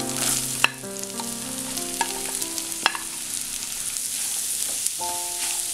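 Chopped onions sizzling in hot oil with whole spices as they go into the pan and are stirred with a spatula, with two sharp taps of utensil on pan. Soft sustained background music notes sound over it.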